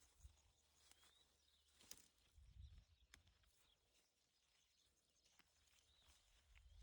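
Near silence with faint bird chirps, short rising calls repeated a few times, along with a few soft clicks and low thuds.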